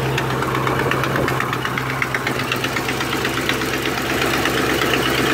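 1984 Chevy C10's 305 small-block V8 idling shortly after a cold start, with a rapid, even ticking over a steady low hum. The owner puts the ticking down to a bad exhaust manifold leak.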